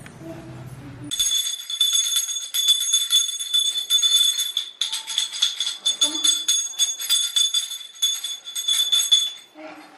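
Puja hand bell rung rapidly and continuously for the aarti (deeparadhanai), a bright, steady ringing that starts about a second in, breaks off briefly near the middle, and stops shortly before the end.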